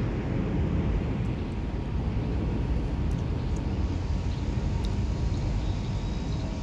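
Steady low rumble of wind buffeting the phone's microphone as a storm front approaches.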